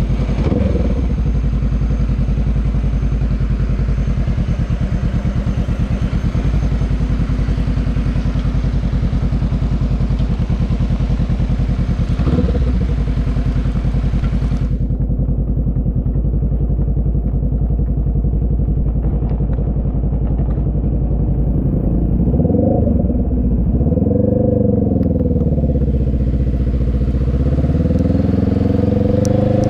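Motorbike engine running under a hiss of rain and wet road. The hiss cuts off suddenly about halfway through, leaving the engine, which then rises and falls in pitch and climbs again near the end as the bike speeds up.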